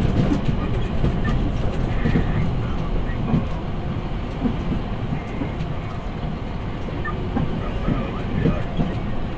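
Scania P360 dump truck driving, with a steady low diesel engine rumble and road noise. Scattered short knocks and rattles run throughout.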